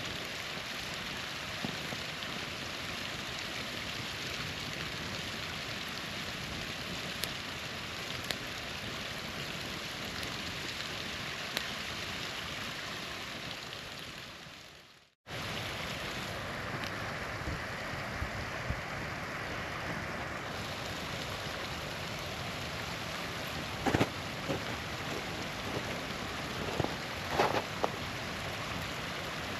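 Small waterfall rushing steadily, with a campfire crackling: a few scattered pops and two louder bursts of snapping near the end. The sound fades out just before halfway and cuts straight back in.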